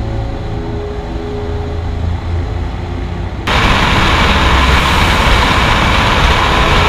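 F4U-4 Corsair's radial engine droning steadily, heard from inside the cockpit in flight. About three and a half seconds in the sound cuts abruptly to a louder, hissier rush of airflow and engine noise from a camera mounted outside on a P-38 Lightning.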